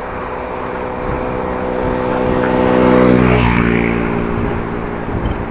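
A motor vehicle passing the bicycle: its engine hum grows louder to a peak about three seconds in, then drops in pitch as it goes by, over steady road and wind noise.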